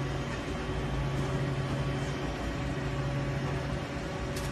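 Steady low electrical hum under a faint even hiss: machine room tone.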